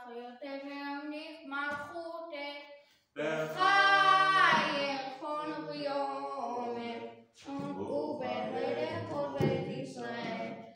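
A boy chanting a Hebrew text in phrases to the traditional cantillation melody, practising his bar mitzvah reading. A louder, higher phrase comes about three seconds in.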